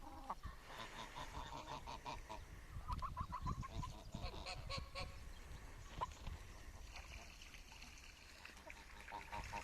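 Domestic geese and ducks calling faintly in quick runs of short honks and quacks, several times over.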